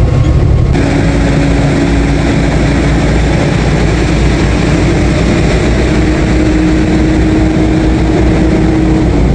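Semi truck driving at highway speed, heard inside the cab: a steady low engine and road rumble with a hum that edges slightly up in pitch. A brighter rush of road and wind noise joins about a second in.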